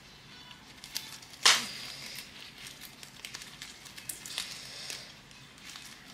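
Crinkling and rustling of small plastic treat bags and ribbon being handled and knotted, with scattered crackles and one sharp, loud rustle about one and a half seconds in.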